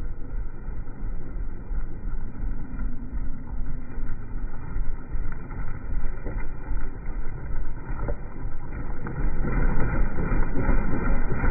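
Royal Enfield Himalayan's single-cylinder engine running as the motorcycle rides along a gravel track, a low, dull rumble that grows louder in the last two seconds as the bike comes close.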